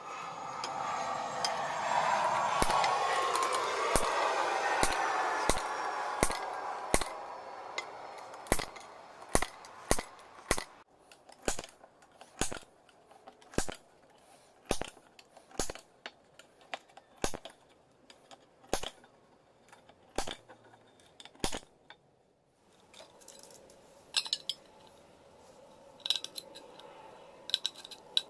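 Sharp metallic taps, about one a second, as holes are punched one by one through the wall of a thin tin can with a pointed tool. Near the end, quieter clicks of tin snips cutting the can. A loud rushing noise with gliding tones fills the first several seconds.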